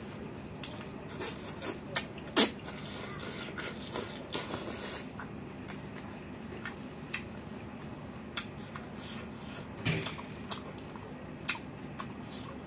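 A person eating by hand, chewing with the mouth open, with wet lip smacks and sharp mouth clicks coming irregularly throughout. The loudest smack is about two and a half seconds in, and another is at about ten seconds. A steady low hiss lies underneath.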